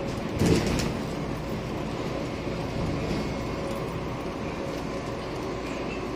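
Scania N230UD double-decker bus under way, heard from the upper deck: steady five-cylinder diesel engine and road rumble, with a brief rattle about half a second in.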